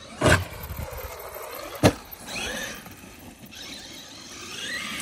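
Traxxas Maxx brushless electric RC monster truck: a thud just after the start and a sharp hard knock a bit under two seconds in as it lands, then the motor whining up and down twice as it is driven on.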